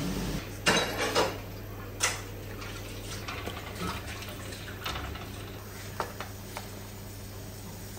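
Cooking clatter at a gas range: a few sharp clanks and scrapes of a pan and utensils, the loudest about a second and two seconds in, then lighter clicks as ingredients go into the frying pan, over a steady low hum.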